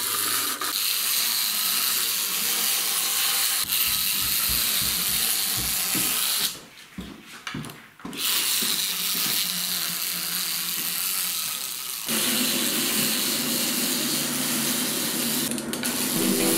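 Clockwork wind-up motor of a small plastic toy road roller whirring steadily as it drives along, with a short break about seven seconds in.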